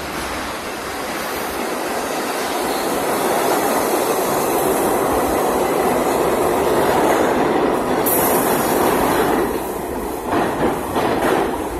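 R62A subway train pulling into the station and running past close by: a steady rumble of wheels and motors grows louder, with a brief high hiss about eight seconds in. Near the end, sharp clicks of the wheels over the rail joints come through.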